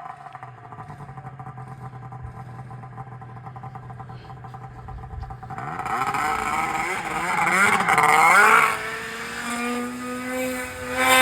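Two-stroke engine of a Polaris RMK 700 snowmobile running at a steady low speed, then revved up and down several times from about halfway in. There is one more rise in revs near the end.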